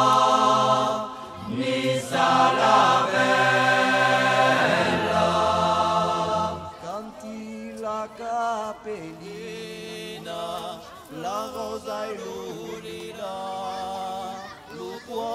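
Vocal music: voices chanting in long held notes, loud for about the first six seconds, then softer singing with wavering, shifting pitch.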